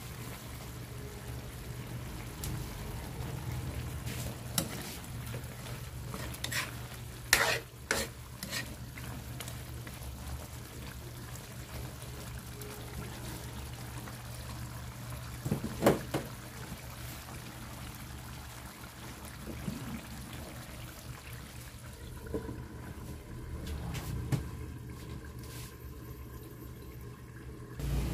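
Sauce simmering and bubbling in a wok while a metal ladle stirs and scrapes through it, with a few sharp clinks of the ladle against the pan, bunched about seven to eight seconds in and again around sixteen seconds. A steady low hum runs underneath.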